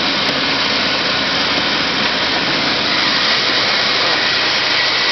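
1989 GMC S15 Jimmy's engine idling steadily under the open hood, minutes after a cold start at −20 °C with no block heater or battery charger. It sounds healthy.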